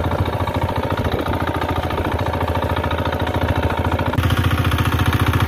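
Fishing boat's engine running steadily with a fast, even pulse, stepping up louder about four seconds in.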